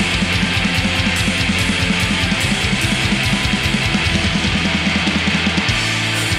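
Black metal recording: distorted guitars over fast, dense drumming, the riff changing near the end.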